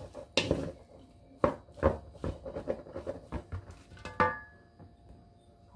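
Wooden rice paddle stirring cooked rice in a stainless steel bowl: a series of knocks and scrapes of wood on metal, with one louder strike about four seconds in that leaves the bowl ringing briefly.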